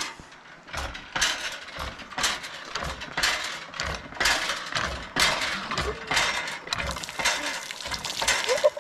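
Campground hand water pump being worked, its handle and mechanism clanking in a steady rhythm of about one stroke a second.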